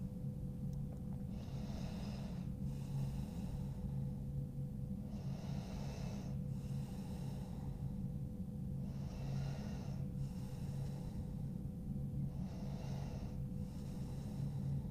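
A person breathing slowly and deeply through the nose while holding a stretch, about four unhurried in-and-out breath cycles. A steady low hum runs underneath.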